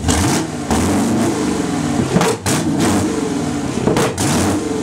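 A 1980 Chevy small-block V8 revved repeatedly in quick blips through a loud exhaust, its pitch sliding back down between blips.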